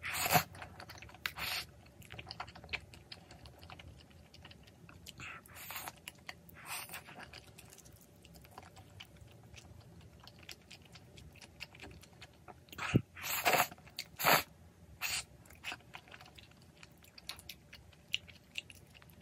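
Close-miked eating: slurping and chewing of glass noodles and tteokbokki in a thick cream sauce, with wet mouth sounds coming in short bursts between quieter stretches. A sharp click about two-thirds of the way through, among the loudest slurps.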